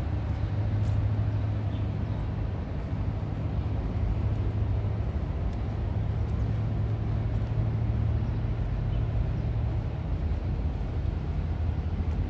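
Steady low engine drone, a constant hum under an even outdoor background noise.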